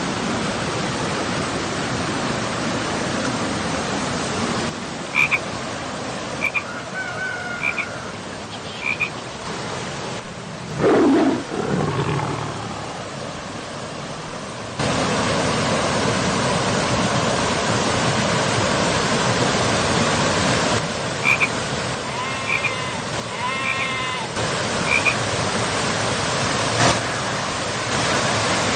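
River water running over rocks and small falls, a steady rush. Short high chirping calls repeat about a second apart a few seconds in and again later, and there is a louder low call about eleven seconds in.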